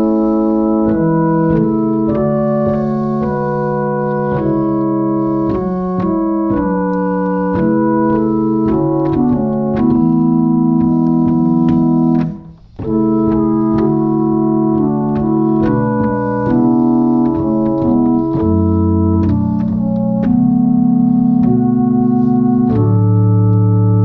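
1871 Walker pipe organ playing sustained chords on its claribel flute 8 ft stop, a rank of wooden pipes with a fluty tone. The playing pauses briefly about halfway, then resumes, with low bass notes entering near the end.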